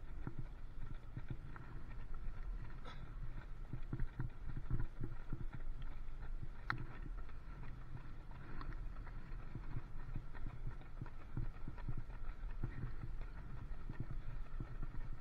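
Runners' footsteps on wet tarmac, an irregular patter of short knocks, over the steady low rumble of a bicycle rolling close behind them.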